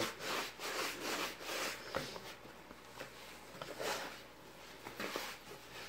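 Hands mixing and working flour tortilla dough in a plastic bowl: soft scraping, squishing strokes, a quick run of them at first, then a few more spaced out, with a short knock against the bowl about two seconds in.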